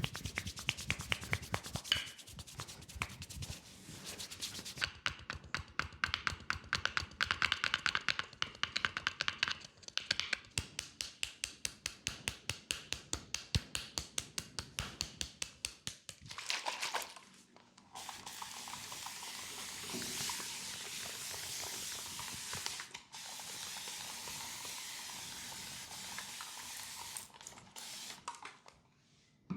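Fast rhythmic hand strokes of a leg massage, slapping and tapping several times a second. After about 17 seconds the strokes give way to a steady hiss, broken once briefly.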